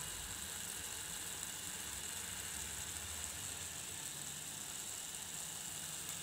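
Chicken, tomato and capsicum in a watery sauce simmering and sizzling steadily in an aluminium frying pan as the added water cooks off, with a low steady hum beneath.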